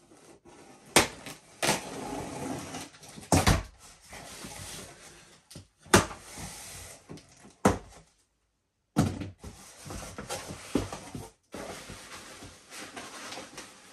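Packing tape on a cardboard box being slit open with a blade, with cardboard scraping and rustling and several sharp knocks and clicks as the box and its flaps are handled.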